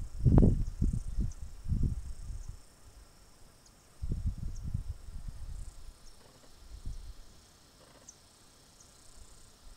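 Faint, steady high-pitched insect trilling, with low rumbling buffets on the microphone in the first couple of seconds and again about four seconds in.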